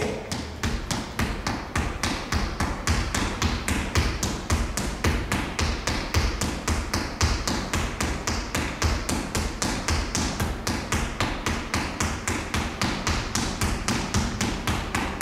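Quick, steady footfalls of trainers on a wooden sports-hall floor from running on the spot with high knees, about four steps a second.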